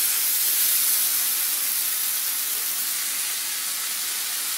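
Mango pieces with onion and tomato sizzling in hot oil in a kadai: a steady frying hiss that fades slightly.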